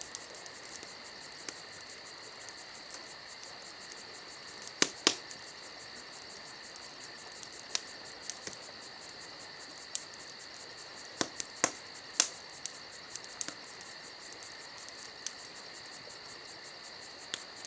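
A steady, high-pitched chorus of night insects chirring without a break, with a scattering of sharp clicks, the strongest about five seconds in and a cluster around eleven to twelve seconds.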